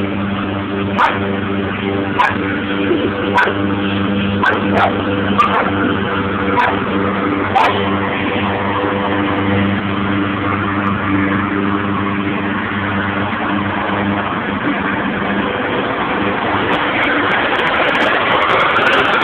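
Lawn mower engine running steadily while a dog barks at it, about once a second over the first several seconds, then stops barking as the engine keeps going.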